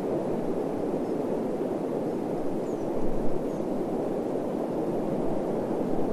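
A steady, dull rushing noise with no tone or rhythm in it, swelling slightly about three seconds in.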